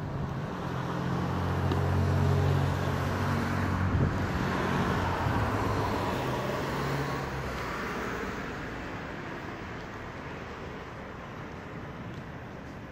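A road vehicle passing by: engine hum and tyre noise swell over the first few seconds, then fade slowly away.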